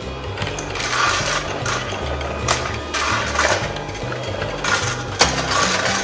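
Battery-powered toy Dyson upright vacuum (Casdon) running: its small motor whirrs and the colourful balls in the clear cyclone chamber rattle, with a few sharp clicks. Background music with a stepping bass line plays underneath.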